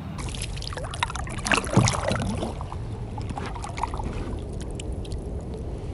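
Oars dipping and splashing as a wooden rowboat is rowed through still swamp water, with irregular knocks from the oars and the hull. The loudest splash comes about two seconds in, and the strokes thin out after that.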